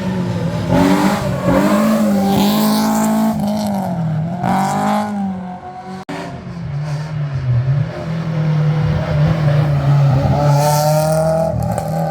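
Rally car engines at full throttle on a stage, revving up and dropping in pitch through gear changes. About 6 s in the sound breaks off abruptly and a second car is heard, its engine rising in pitch as it accelerates past.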